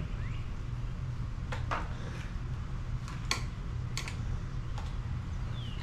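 A few sharp clicks and taps from plastic pressure-washer parts being handled and fitted together, over a steady low hum.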